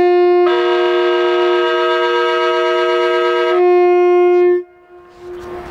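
Train horn sounding one long, loud blast: a low tone joined by a higher second tone for about three seconds, then the low tone alone before it cuts off sharply.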